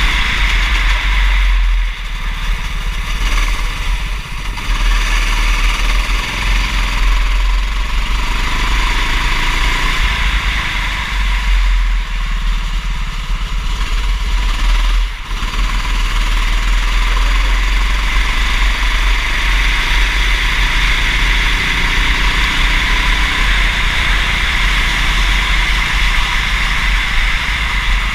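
Racing kart engine running hard, its pitch rising and falling with the throttle, over a constant low rumble, with two brief dips in loudness.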